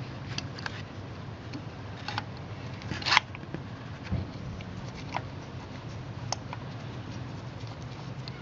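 Small, scattered clicks and light scrapes of a spark plug socket and extension being worked by hand in a plug well of an Audi 3.0 V6 head, with one louder, brief scrape about three seconds in, over a steady low hum.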